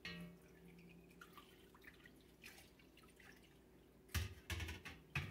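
Soapy bubble solution being scooped from a mixing bowl and poured into a plastic jar, dripping and trickling softly, with a few dull knocks about four seconds in.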